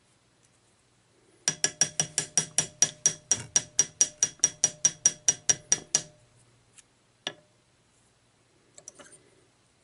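Metal hair stacker tapped rapidly on the bench, about six sharp ringing taps a second for some four and a half seconds, settling a bunch of deer hair so the tips line up evenly. A single knock follows about seven seconds in.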